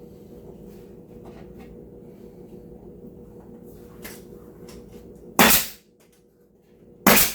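Nail gun firing twice, about a second and a half apart, driving nails into a wooden cabinet face piece.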